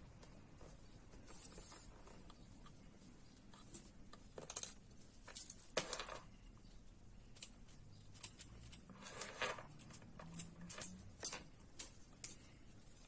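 Faint rustling and scratching of a small fabric bow being hand-sewn: thread drawn through the cloth with a needle and fingers handling the fabric. The sounds come in short irregular bursts, with two longer swishes about six and nine seconds in.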